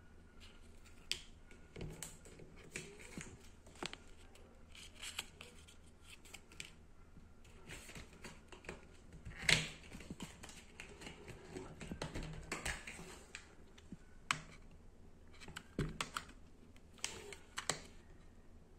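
Irregular small clicks, taps and rustles of plastic MiniDisc cases and a paper insert card being handled on a table, with one louder knock about halfway through.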